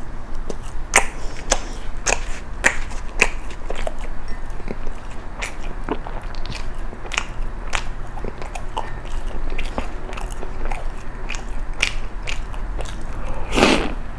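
Close-up chewing of crisp toast, with many short crunches scattered throughout and a louder, longer crunch near the end.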